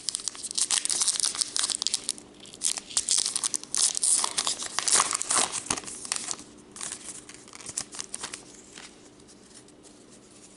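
A plastic trading-card pack wrapper being torn open and crumpled: dense crinkling for about six seconds, thinning to a few scattered crinkles before it stops.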